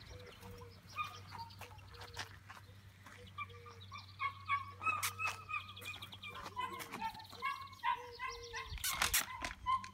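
Domestic fowl clucking and calling, short repeated calls that grow into a busier, overlapping chorus from about halfway through. Scattered knocks and rustles, loudest near the end.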